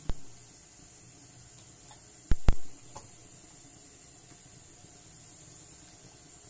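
Sharp knocks against the aluminium cooking pot: one at the very start, two close together a little over two seconds in, and a faint one just after. Under them runs a steady low hiss from the pot heating on the stove.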